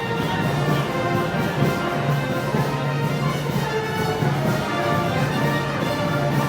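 Brass band music playing, with held notes over a low brass line that pulses about once a second.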